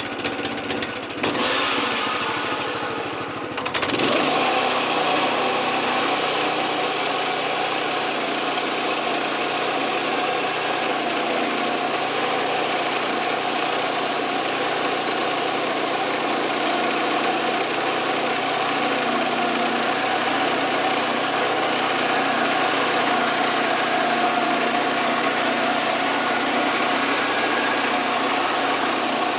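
Small gas engine driving a homemade band sawmill. It runs steadily with a thin, high, steady whine on top. The sound jumps up about a second in and settles into a steady run from about four seconds in.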